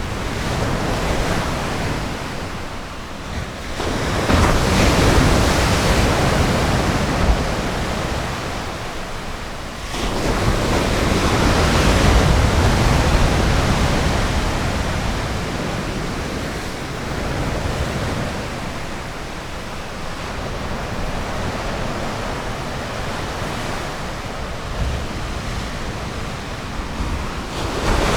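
Ocean surf washing onto a beach: a steady rush of breaking waves, with two larger waves surging in about 4 and 10 seconds in.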